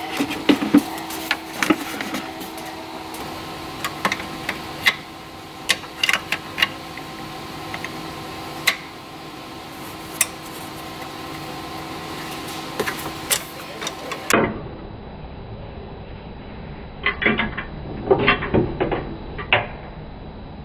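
Irregular metallic clicks and knocks of hand tools and parts being handled in a truck's engine bay, over a steady low hum. A duller stretch follows, with a few short clusters of clicks near the end.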